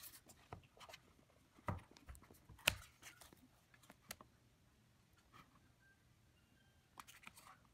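Cardboard product box being handled and opened by hand: a few sharp taps and knocks, the two loudest about two and three seconds in, then a quiet stretch and a few light clicks and rustles near the end.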